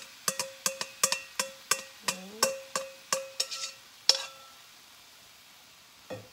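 A metal utensil knocking and scraping against a stainless steel mixing bowl, each tap making the bowl ring at the same pitch, about three taps a second, as soaked shredded coconut is knocked out into a frying pan. The tapping stops about four seconds in, and a single dull knock comes near the end.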